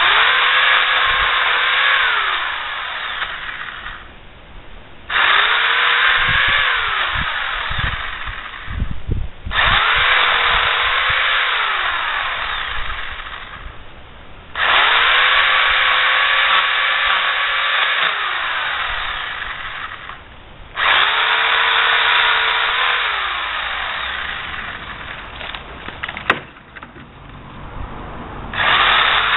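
Chicago Electric 1.5 hp electric pole saw running in about six bursts of a few seconds each, spinning up and winding down each time as it cuts pear tree branches. Low thumps come during the second burst, and a single sharp crack sounds shortly before the last burst.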